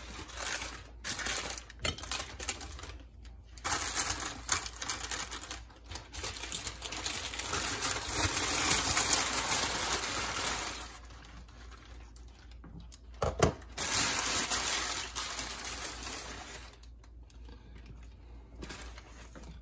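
Grease-soaked paper wrap crinkling and rustling as a smoked brisket is unwrapped by hand and lifted onto a plastic cutting board, loudest in the middle, with one sharp knock about two-thirds of the way through.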